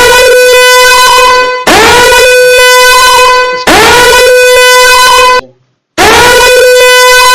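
Alarm tone from an alarm clock web app ringing. Each loud, steady electronic blast slides up in pitch at its start and lasts about two seconds, repeating back to back. There is a half-second break about five and a half seconds in before the blasts resume.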